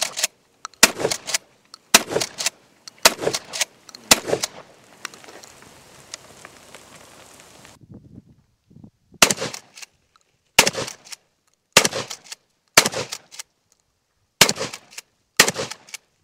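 12-gauge pump-action shotgun fired in two quick strings, ten shots in all about a second apart, each with a short ringing tail. The first four shots are followed by a gap of a few seconds before the next six.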